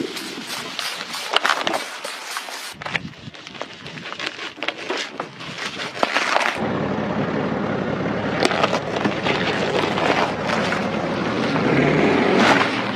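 Car tyres rolling over and crushing crunchy objects: a dense run of cracks and crackles over rolling tyre noise, changing abruptly about three and six and a half seconds in, with a car engine running low and steady in the second half.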